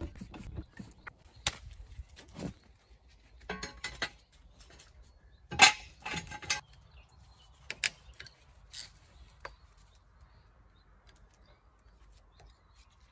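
Scattered metal clanks and knocks from a trolley jack and a steel axle stand being worked under a car, the loudest clank a little before halfway; fainter small clicks follow.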